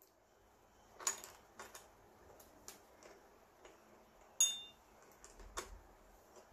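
A small screwdriver clicking and tapping against a Nikon camera's fittings: about half a dozen scattered sharp clicks, the loudest about four and a half seconds in with a brief metallic ring.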